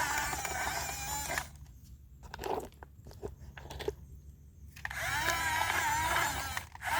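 Small electric motor of a radio-controlled excavator whining, its pitch wavering as the load changes. It stops after about a second and a half. A few clicks and knocks follow, and the whine starts again near the end.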